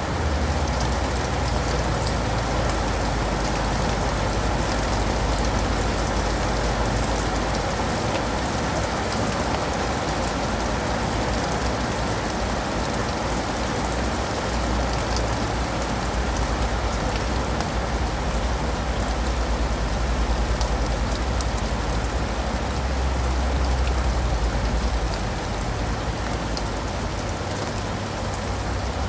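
Steady rain falling, with many fine drop ticks, over a low rumble that eases off near the end.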